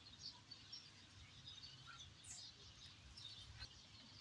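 Near silence: faint outdoor background with a few faint, high bird chirps.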